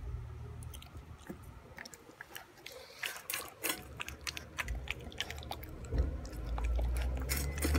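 Boston Terrier puppy eating from a stainless steel bowl: wet chewing and licking, with quick clicks against the metal that come thicker from about three seconds in.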